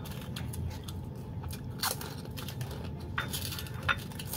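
Close-up chewing of crisp food: sharp, crackly crunches as it is bitten and chewed, the loudest about two seconds in and again near the end.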